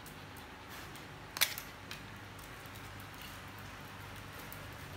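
Faint ticking of dogs' claws on a tiled floor, with one sharp click about a second and a half in.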